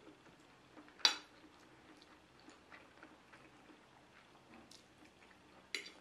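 Metal fork clinking and scraping on a plate while twirling spaghetti. A sharp ringing clink comes about a second in and another near the end, with small faint ticks between.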